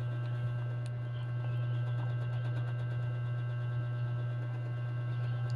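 Steady low hum throughout, with a faint click about a second in.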